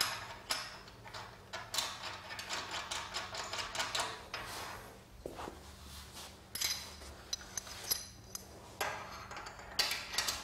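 Aluminium solar-panel mounting-frame rails, clamps and screws being handled and fitted together: irregular clicks, taps and light metallic clinks.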